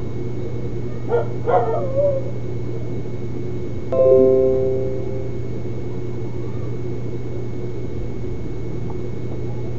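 Background music with a steady hum. A few short yelping sounds come about a second in, and a single ringing note sounds about four seconds in and fades over a second.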